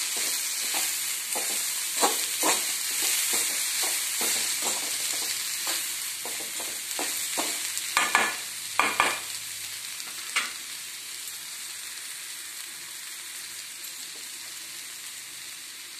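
Onions, green chilies and whole spices sizzling as they fry in an iron kadai, with a metal spatula scraping and clacking against the pan as they are stirred. The stirring stops about ten seconds in, and the sizzling carries on, slowly growing quieter.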